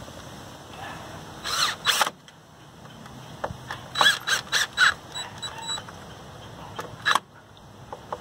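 Cordless drill-driver running in short trigger bursts, driving screws through a stainless steel bracket into a boat transom: a first burst, a quick cluster of bursts, then one last short burst as the screws are snugged flush.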